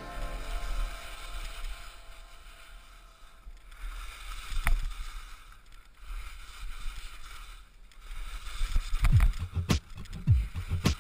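Skis sliding and hissing over snow, with wind rumbling on the microphone. About halfway there is one sharp tick, and near the end a run of louder thuds and buffeting rumbles as the skis cut through powder spray.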